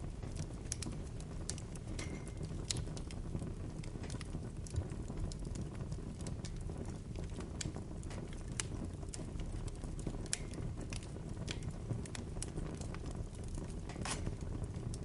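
Bonfire burning: a steady low sound of the flames with irregular sharp pops and snaps of the burning wood, the strongest near the end, and a couple of brief faint whistles.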